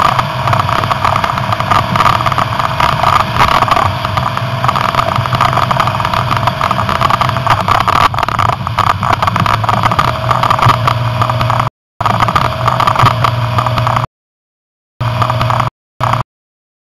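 Jeep Grand Cherokee running, picked up by a camera mounted low on its front bumper: steady engine, tyre and wind noise. The sound cuts out abruptly about twelve seconds in, returns for a couple of seconds, then comes only in two short snatches before stopping.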